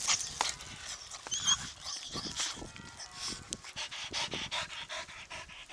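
A dog panting and snuffling up close while being greeted and petted, with scattered short clicks and rustling throughout.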